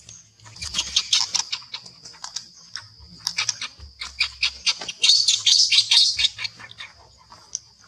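Baby monkey giving rapid high-pitched distress squeaks in three bursts, loudest about five to six seconds in, while its mother pins it to the ground.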